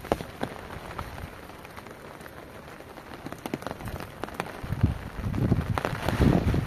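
Steady rain falling, with close drips and water splashing off the edge of a hut roof. The pattering grows louder and heavier about five seconds in.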